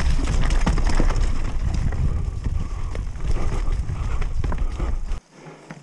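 Mountain bike clattering and rattling over rough trail, with a dense run of knocks and clicks over a heavy low rumble of wind on the microphone. About five seconds in, the rumble cuts off suddenly and the sound turns much quieter.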